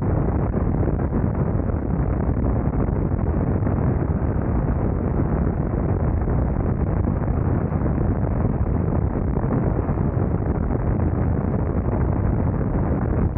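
BMW R nineT Scrambler's boxer-twin engine cruising at steady road speed, its low drone mixed with wind rushing over the microphone. The sound holds steady throughout, with no rev changes or gear shifts.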